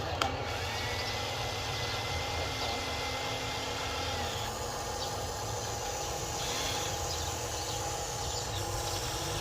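Huina RC excavator's small electric motors running with a steady whir and thin whine, a higher whine holding from about a second in to about four seconds. A single click right at the start.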